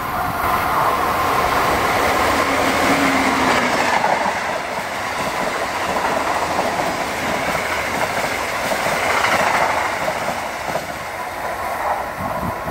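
Amtrak passenger train running past at speed: a loud, steady noise from the cars on the rails that eases a little near the end as the train pulls away.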